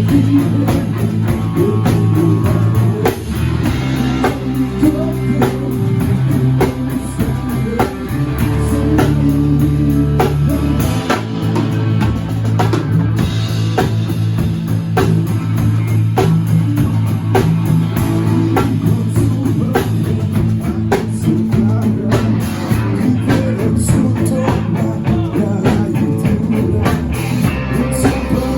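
Live rock band playing with electric guitar and drum kit, the drums keeping a steady beat.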